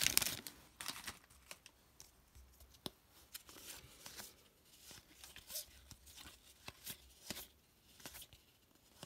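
Foil wrapper of a trading-card pack crinkling in the first half-second, then faint soft clicks and slides of cardboard trading cards being flipped through one at a time by hand.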